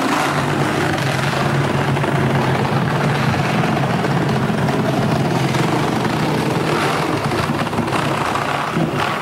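Chainsaw running steadily, its bar cutting through a wall of the set.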